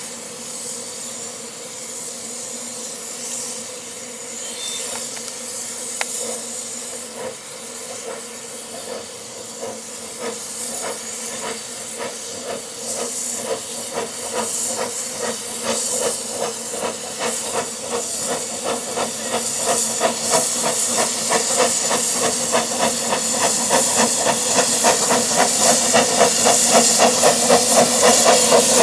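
Double Fairlie narrow-gauge steam locomotive hissing steam, then working its train with rhythmic exhaust chuffs that grow steadily louder as it approaches.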